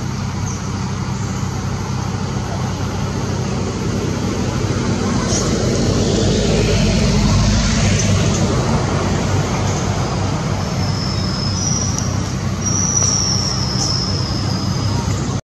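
Steady engine drone of nearby motor traffic, swelling a few seconds in and easing off again, with a few thin high-pitched squeaks near the end.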